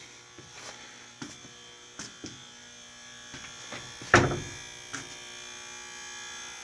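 A steady electrical buzz with scattered knocks and clicks, the loudest knock about four seconds in.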